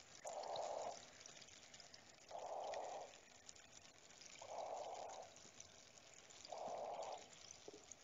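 Faint cave-water ambience: a constant fine dripping and trickling, with a soft whooshing swell of noise four times, about every two seconds, at an even pace.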